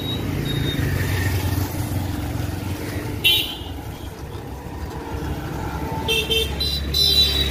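Street traffic heard from a moving bicycle: a steady low rumble of engines and wind on the microphone, with a sudden sharp clatter about three seconds in. Near the end a high ringing signal sounds for about a second and a half.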